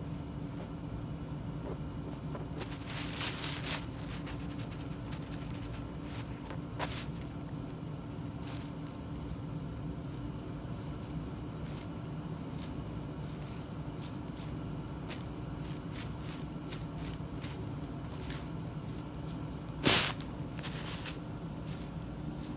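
Steady low room hum with scattered soft crackles and rustles of tissue paper. One brief, much louder crackle of tissue paper comes near the end as a cat steps into it.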